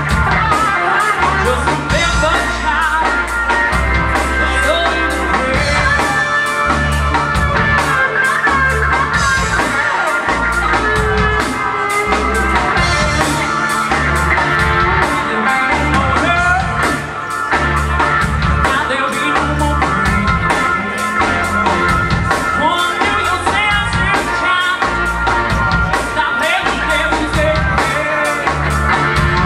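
Live blues band playing: a woman singing lead over electric guitar, electric bass and a drum kit.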